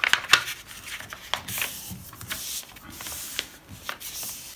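Sheets of paper rustling and crinkling as hands slide them into place and smooth them flat, with several sharp crackles.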